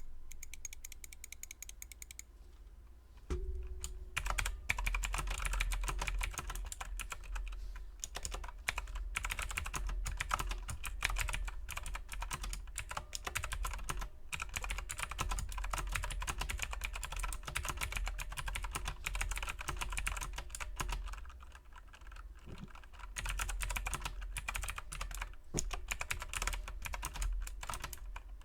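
Mechanical keyboard with clicky Cherry MX Blue switches and Durock plate-mount stabilizers being typed on fast and continuously. The typing starts after a thump about three seconds in and pauses briefly about three quarters of the way through.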